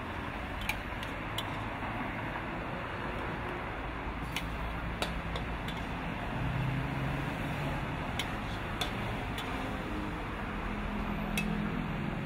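Scattered sharp clicks of a metal spatula against a wok and a serving bowl as stir-fried food is scooped out, over a steady rushing noise. A low engine hum swells briefly in the middle and again near the end.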